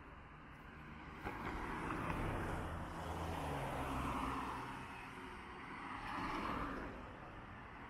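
Street traffic: cars passing one after another, their tyre and engine noise swelling and fading, with a low engine hum underneath. One short sharp click about a second in.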